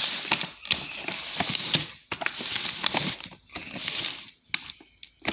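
Packaging of a firework cake being handled and turned over: irregular crinkling, rustling and light taps.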